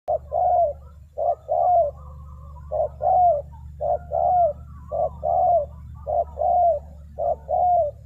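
Spotted dove cooing: a repeated two-part coo, a short note then a longer one that bends down in pitch, about once a second. A steady low hum runs underneath.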